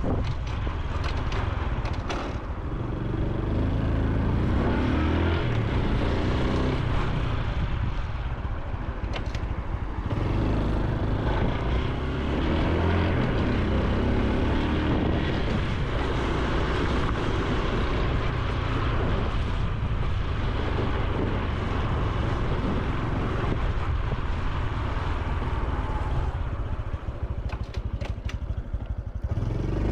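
Honda Super Cub C125's single-cylinder four-stroke engine and exhaust on the move, pitch climbing and dropping back several times as it accelerates and eases off.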